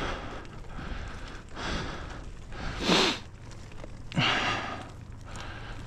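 A cyclist breathing hard while pedalling uphill, with a breath about every second and a half; the two loudest come around the middle of the stretch.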